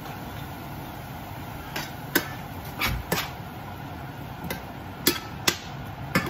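Kitchen utensils knocking and clicking against cookware while food is seasoned: about eight sharp, separate knocks over a few seconds, over a steady background hum.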